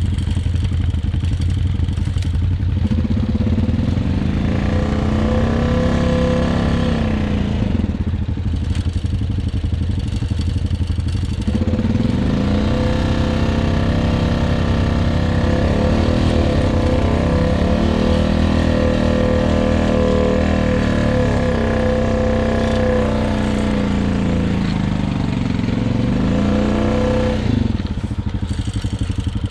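Honda quad bike's engine running under load over soft boggy ground, its revs rising and falling again and again as the throttle is worked. A steady whine runs alongside the engine through much of the ride.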